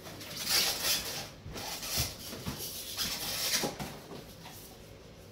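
Cardboard box packing being handled: rubbing and scraping of cardboard and a foam packing block as it is pulled out of the box, in several rough stretches with a few light knocks.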